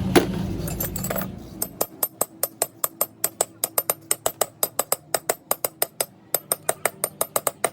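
A steady machine running noise fades out about a second and a half in. It gives way to a fast, even run of light, ringing metal taps, about five a second, like a small hammer striking metal.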